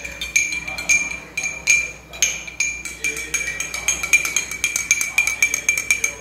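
Metal spoon stirring salt into spiced buttermilk in a drinking glass, clinking against the glass about two to three times a second, each clink ringing briefly.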